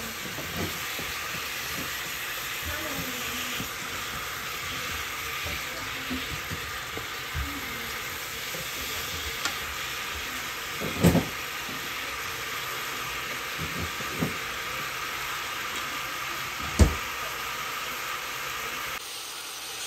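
Chicken drumsticks with onions and green bell peppers sizzling steadily in a frying pan while they are turned with silicone-tipped tongs. A few knocks of the tongs against the pan come through, the loudest about eleven and seventeen seconds in.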